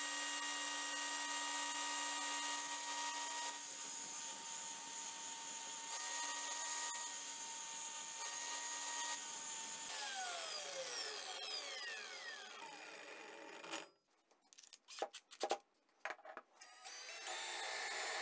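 Brushless cordless angle grinder running steadily at speed with a steady whine while a twist drill bit is sharpened against its abrasive disc. It is switched off about ten seconds in and winds down with a falling pitch. This is followed by a few clicks and knocks, and then a cordless drill starts near the end.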